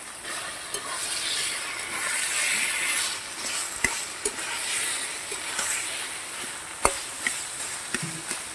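Long metal spatula stirring taro greens frying in oil in a metal kadai: a steady sizzle, with several sharp clicks and scrapes of the spatula against the pan, the loudest about two-thirds of the way through.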